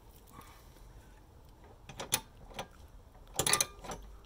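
Socket ratchet clicking as a bolt is tightened against a wrench-held nut, with metal clicks from the tools. The clicks are scattered at first, from about two seconds in, and come as a short quick run about three and a half seconds in.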